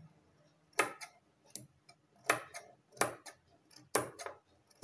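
Large steel tailor's shears snipping small notches into a sewn kurti neckline seam: about five sharp snips, roughly one every three-quarters of a second.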